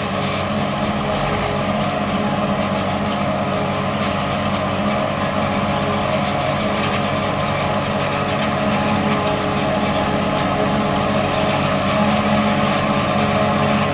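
Diesel farm tractor or harvesting machinery running steadily during corn silage work: a continuous engine drone with a steady pitched whine, growing slightly louder near the end.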